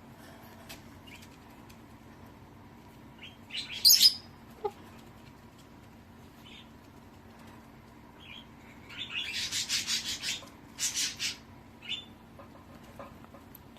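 Chickens: a short rustling flap about four seconds in, then a longer burst of rapid wing flapping from about nine to eleven seconds, with a few faint chirps in between.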